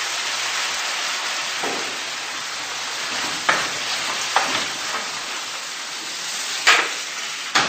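Minced meat and vegetables sizzling steadily in a hot frying pan, stirred with a wooden spatula that scrapes the pan a few times. The steady sizzle is the sign of a properly hot pan.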